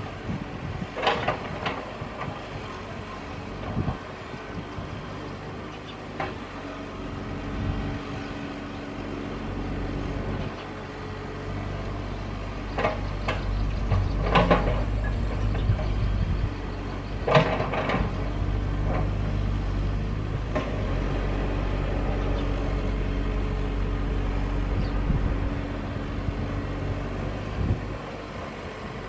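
Hitachi Zaxis hydraulic excavator's diesel engine running while it digs, climbing to a louder working pitch about a third of the way in and settling again near the end. A few sharp clanks stand out over the engine.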